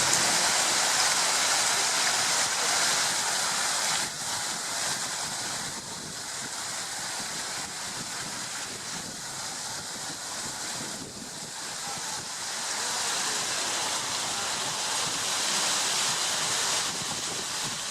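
Steady rushing of stream water, an even hiss whose level steps up or down abruptly a few times.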